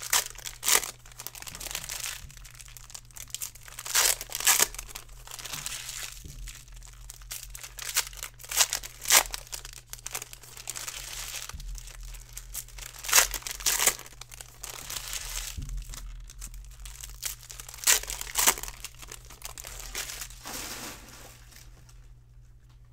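Foil wrappers of Optic baseball card packs being torn open and crinkled by hand, in irregular crackling bursts that die down near the end.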